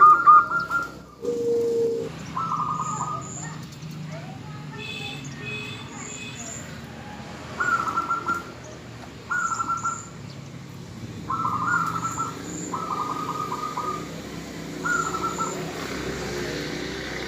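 Female zebra dove calling: short, rapidly pulsed trilling coos, repeated every second or two, about seven times.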